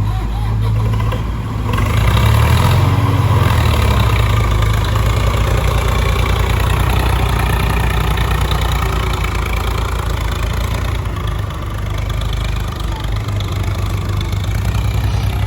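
Heavy diesel engine running steadily, picking up about two seconds in and working harder for several seconds before easing back.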